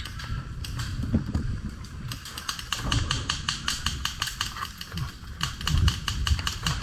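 Airsoft electric rifle firing rapid shots, a fast run of sharp clicks at about seven a second, starting about two seconds in. Low rumble of wind and handling on the microphone underneath.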